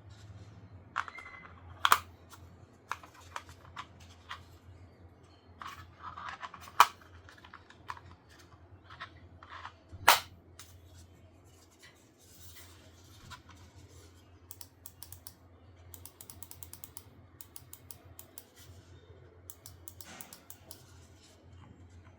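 Handling of a Logitech G Pro X Superlight 2 Dex wireless gaming mouse: a few sharp knocks and some rustling, then, about two-thirds of the way in, runs of quick, light clicks.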